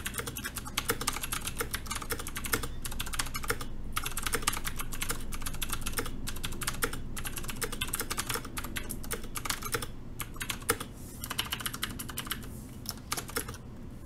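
Fast typing on a Cooler Master MasterKeys S tenkeyless mechanical keyboard with clicky Cherry MX Green switches and PBT keycaps: a rapid stream of key clicks, broken by a few brief pauses.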